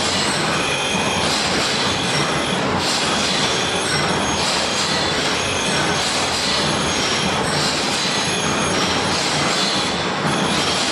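Surface grinder grinding a header machine's cutter plate: a loud, steady hiss and screech from the grinding wheel, the high screech swelling about every second and a half.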